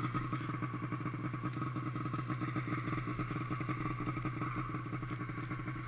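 Two-stroke mountain snowmobile engine idling steadily, with an even, fast pulse and no change in revs.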